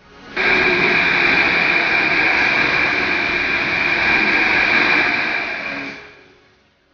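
Metro train running into a station: a loud, steady rushing rumble with a faint high ringing tone in it, cutting in suddenly about half a second in and fading away near the end.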